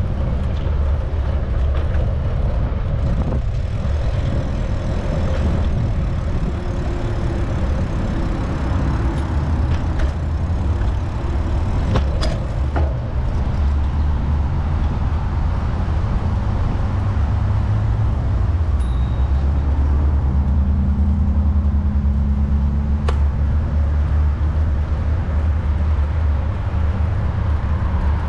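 Steady low rumble of wind on the microphone and road noise from a moving bicycle, with traffic from the road alongside. A few sharp clicks, about halfway through and again later.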